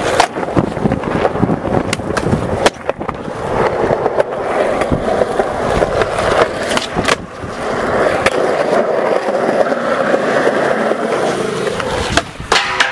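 Kick scooter's small hard wheels rolling over pavement: a continuous rattling rolling noise with sharp clicks now and then.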